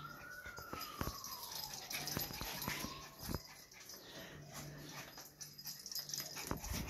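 A small dog whimpering as it scampers about, with scattered clicks and taps throughout. A distant siren wails faintly, rising and falling, and fades out about three seconds in.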